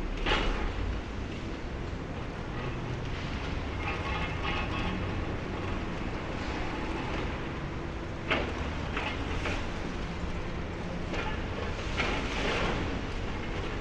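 High-reach demolition excavator working on a concrete tower: a steady low engine rumble with scattered knocks and crashes of breaking concrete and debris. The sharpest knock comes about eight seconds in, and a longer rattle comes near the end.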